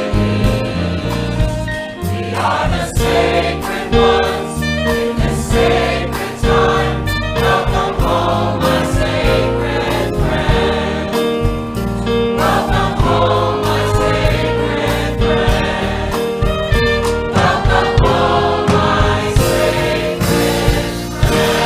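Choir singing a gospel-style song with instrumental accompaniment.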